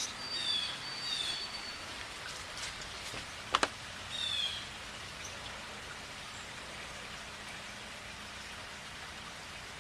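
Steady hiss of falling snow during a snowstorm, with a bird calling short descending chirps three times. A single sharp click about three and a half seconds in is the loudest sound.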